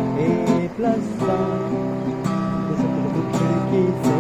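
Acoustic guitar strummed in a steady rhythm, chords ringing and changing every second or so.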